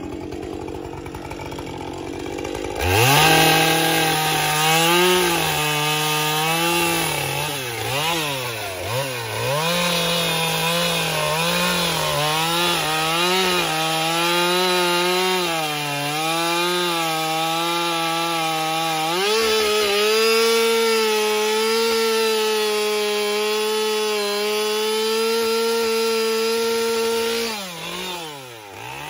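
Husqvarna two-stroke chainsaw cutting into a wooden carving. It starts at idle, revs up about three seconds in, and its pitch rises and dips as the chain bites the wood. About two-thirds of the way through it jumps to a higher, steady pitch, then drops back toward idle near the end.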